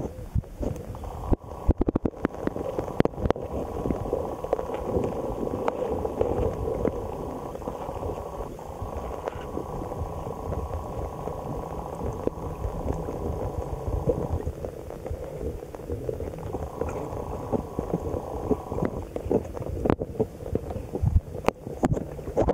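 Muffled water noise picked up by a camera in a waterproof housing held under the surface: a steady gurgling rumble, with a few sharp knocks near the start and again near the end.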